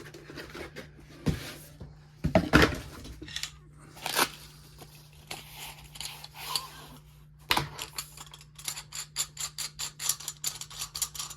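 Gear and packaging being handled and rummaged through in a box: scattered knocks and rustles, then from about eight seconds in a quick run of small clicks and crinkles, over a faint steady hum.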